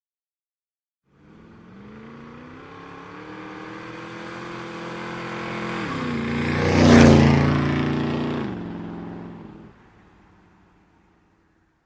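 A car driving past. Its engine grows louder over several seconds, drops in pitch as it passes, is loudest about seven seconds in, then fades away.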